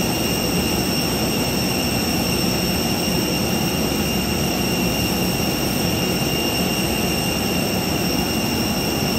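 Jet airliner's turbine engine running on the ramp: a steady rush of noise with a high, even whine.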